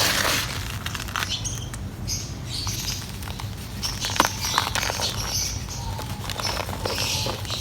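Dry mud crumbling on a sheet: irregular small crackles and sharp clicks, with short bursts of gritty rustling.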